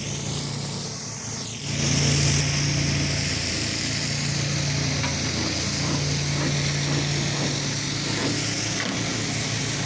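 Pressure washer's gas engine running at a steady pitch, with a constant hiss. The sound gets louder and hissier about two seconds in.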